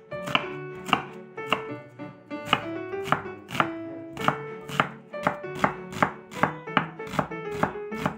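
Kitchen knife chopping an onion on a wooden cutting board: sharp knocks of the blade on the board, about two a second at first, quickening to about three a second in the second half.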